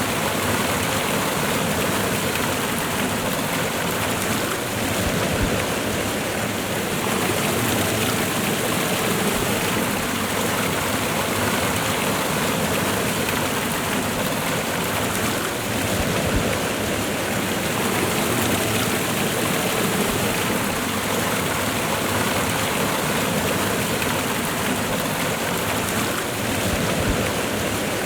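Waterfall and river water rushing in a steady, unbroken stream.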